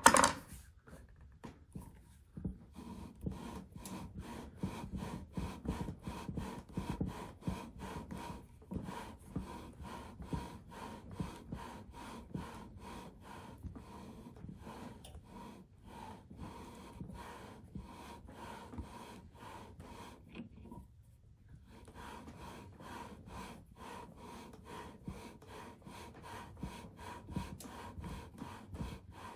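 Scope-ring lapping bar worked back and forth through the rings with lapping compound: a steady gritty metal-on-metal rubbing at about two or three strokes a second, with one short break about two-thirds of the way through. A sharp knock right at the start is the loudest sound. The lapping grinds down the rings' inner surfaces so they sit aligned on the scope tube.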